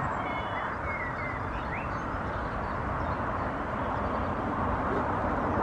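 Steady open-air background rumble with a few faint high bird chirps in the first couple of seconds.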